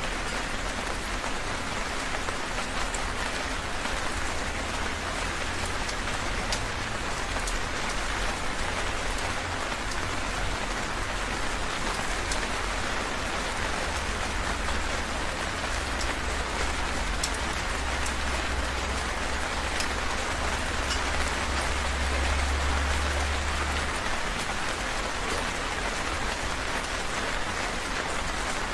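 Heavy rain falling steadily, a dense hiss with scattered sharp drop ticks. A deep low rumble underneath swells for several seconds in the middle.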